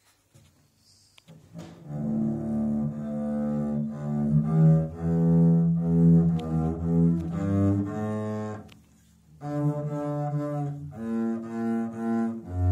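Double bass bowed in a slow, simple melody of held notes, starting about two seconds in, with a short break about nine seconds in before the playing resumes.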